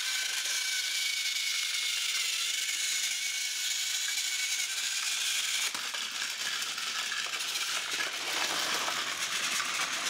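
Battery-powered TrackMaster toy train engine running on plastic track: a steady high motor whine with its gears and wheels rattling. The sound changes a little about halfway through.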